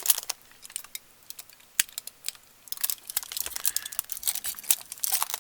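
Aluminium foil and tape being handled and pressed down as masking on a circuit board: scattered sharp crinkles and clicks, turning into a dense crackling about halfway through.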